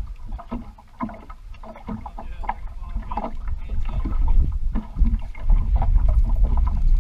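Choppy water slapping and lapping against a bass boat's hull in irregular small splashes, with wind buffeting the microphone as a low rumble that grows much louder about five seconds in.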